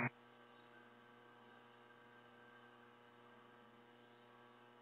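Near silence on an air-traffic-control radio feed between transmissions: only a faint, steady electrical hum.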